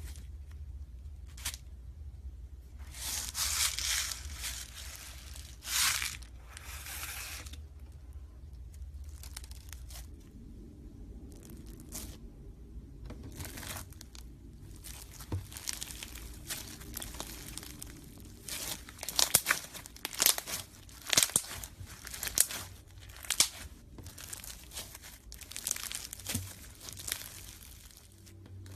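Slime being handled, stretched and pulled apart: wet tearing and crinkling sounds, then a run of sharp crackling snaps about two thirds of the way through.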